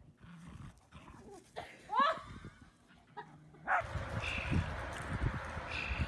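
A dog gives a short, rising yelp about two seconds in. Later come short high calls about every second and a half over a steady hiss.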